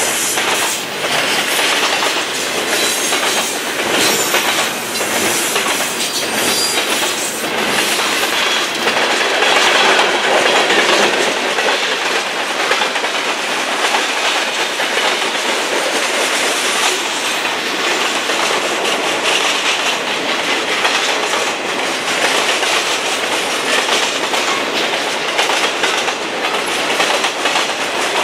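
Freight cars of a long train rolling past close by, double-stack container well cars giving way to a tank car, boxcars and empty woodchip gondolas. Steady wheel-on-rail rumble with repeated clicks and clacks as the wheels cross rail joints.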